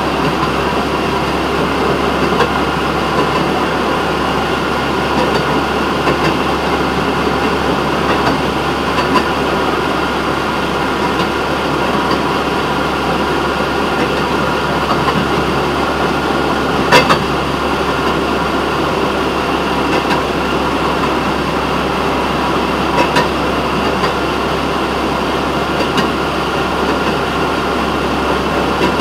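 Railroad motorcar running steadily along the track: constant engine and rolling-wheel noise, broken by a few sharp clicks, the loudest about two-thirds of the way through.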